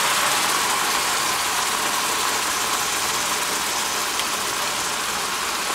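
Water and ramen noodles sizzling and boiling hard in a smoking-hot cast iron wok: a steady hiss.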